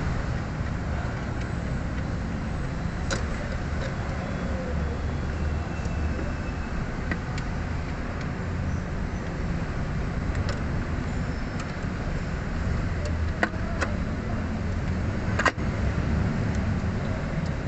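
A few sharp metal clicks and knocks as a brake master cylinder is handled and seated on the brake booster's studs. The loudest click comes near the end. A steady low rumble runs underneath.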